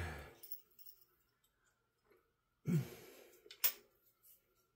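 A woman's short breathy grunt, falling in pitch, then a single sharp click about a second later, with a handling noise fading out at the very start.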